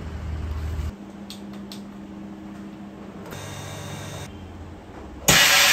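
Chamber vacuum sealer: a low steady hum with a few light clicks, then near the end its vacuum pump starts with a sudden loud rushing noise as it draws the air out of the chamber holding the food bags.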